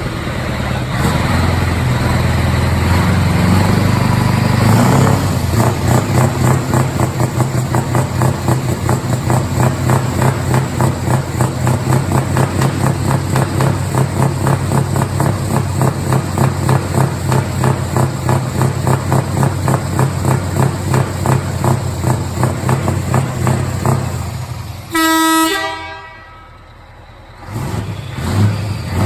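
Scania V8 truck engine running with an even, rhythmic pulse, a little busier for the first few seconds. A short horn toot sounds near the end, then the engine sound drops away briefly and comes back.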